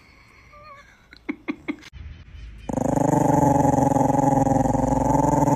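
Dog growling: one continuous growl of about three seconds that starts a little before halfway and cuts off at the end. A few faint clicks come before it.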